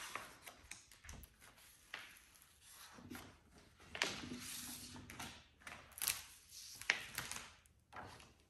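Rustling and crinkling of a large vinyl decal sheet and its paper backing as it is handled and peeled apart, in irregular bursts with a few sharper crackles.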